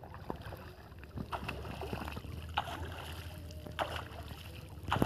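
Water sloshing and splashing around a person wading through a shallow pond while pushing a bamboo-framed push net (sip jal), with a sharper splash about once a second.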